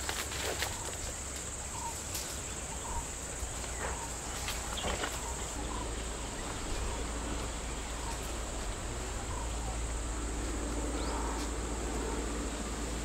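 Forest ambience: a steady high-pitched insect drone that stops about halfway, with short bird calls repeating about once a second and a few sharp snaps. A low steady hum comes in as the drone stops.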